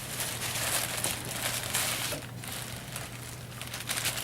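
Plastic sheeting crinkling and rustling in irregular bursts as it is handled and wrapped over a clay slab.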